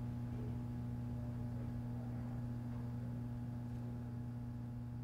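A steady low hum, slowly fading out.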